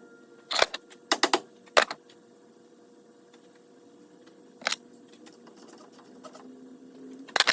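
A few sharp clicks and clinks of hand tools on metal car parts: one click, then a quick run of three, another soon after, and two more spread out later.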